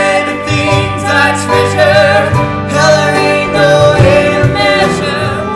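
Two male voices singing a show-tune ballad together, with wavering held notes, over instrumental accompaniment.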